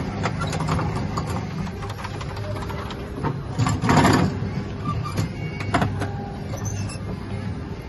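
Falgas school-bus kiddie ride's drive motor humming steadily, with scattered clicks and rattles from the plastic steering wheel and dashboard being handled. A louder, short rustling clatter comes about four seconds in.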